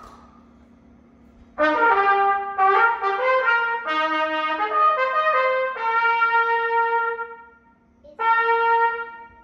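Trumpet playing a short phrase: a run of quick notes, then a long held note that fades away, and after a short pause one more held note near the end.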